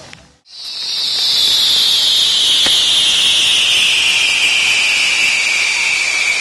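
Ground-firework spinning wheels burning, starting about half a second in after a brief gap: a loud rushing hiss with a shrill whistle that falls slowly in pitch.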